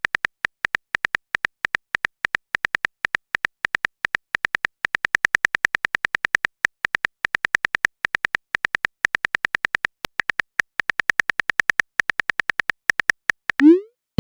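Chat-story app's simulated phone-keyboard typing sound effect: quick, even clicks, about seven a second, as a message is typed out. Near the end the clicks stop and a short rising swoosh follows, the message-sent sound.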